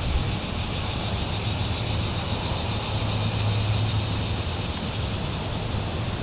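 Boat motor running steadily, with a low hum and a faint higher whine over a noisy hiss.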